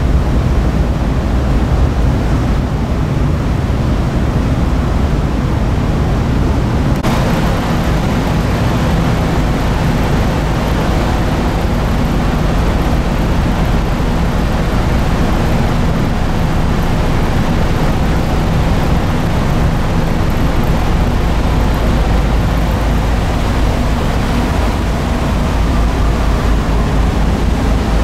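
Car ferry's engines running with a steady low rumble and hiss as the ship manoeuvres alongside the quay to berth. The noise turns abruptly hissier about seven seconds in.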